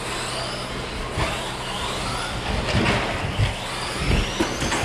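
Several 1/10-scale electric short course trucks with 13.5-turn brushless motors racing on carpet: overlapping high motor whines rising and falling as the trucks accelerate and slow, with several sharp knocks.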